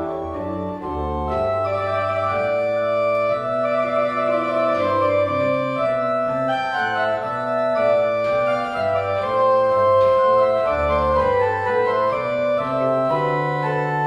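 Organ music: held chords with a bass line that changes note every second or so.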